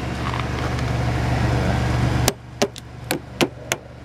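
A rushing noise with a low hum grows louder, then cuts off suddenly a little past two seconds in. A quick series of about five sharp hammer strikes follows, roughly three a second: a hammer chipping caked ice off a truck's door and sill.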